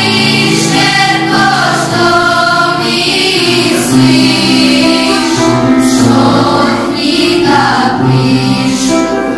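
School children's choir singing a song, with steady low held accompaniment notes under the voices.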